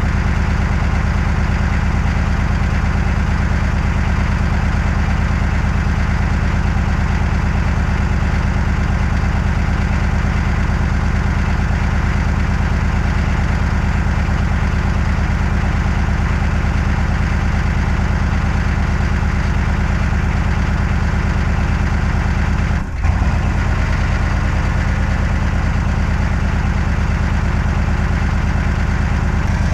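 Chevrolet 6.5-litre V8 turbo diesel idling steadily, still cold after a −3 °F start. A brief thump about three-quarters of the way through.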